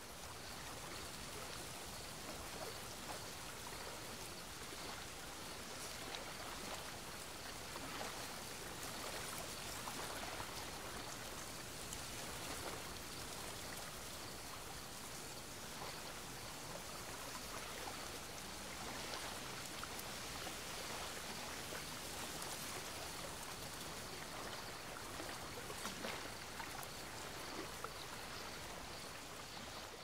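Faint waterside ambience: a steady soft wash of moving water with small ticks and splashes, and a faint high-pitched chirp repeating evenly throughout.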